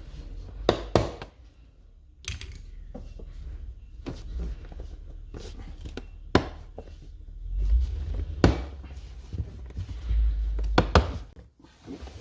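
A C8 Corvette's plastic dashboard trim piece being pried loose with a trim tool. Several sharp snaps come through as its clips let go, over rubbing and handling noise.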